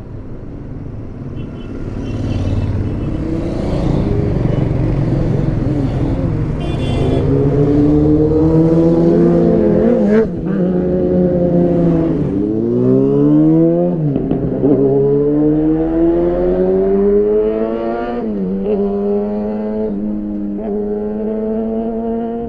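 Sport motorcycle (superbike) engine revved again and again, its pitch sweeping up and falling back, with short throttle blips between stretches of steady idle. A rumble builds up over the first few seconds before the revving starts.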